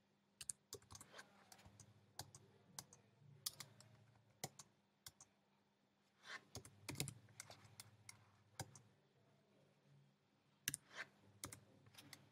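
Faint, irregular keystrokes on a computer keyboard, coming singly and in small clusters, over a low steady hum.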